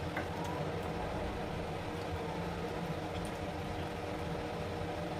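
Steady low background hum of a running machine, even throughout, with a few faint light ticks.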